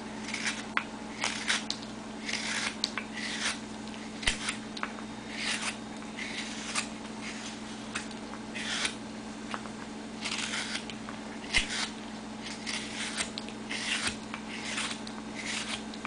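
Hook knife cutting across the grain of a basswood spoon blank: a run of short slicing roughing cuts in the spoon's bowl, one or two a second.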